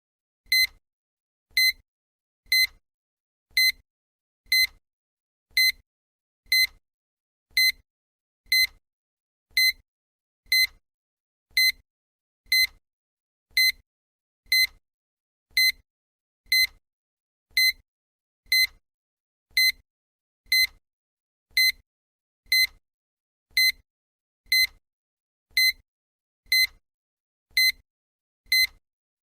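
Countdown timer's sound effect: a short, high-pitched electronic beep, once a second.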